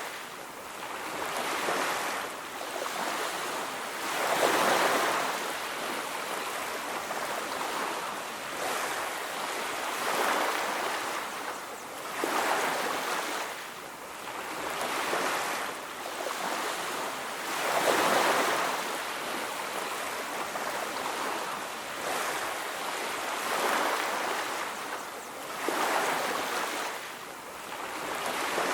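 Sea surf washing onto a beach: a steady hiss that swells with each breaking wave every few seconds, then eases back.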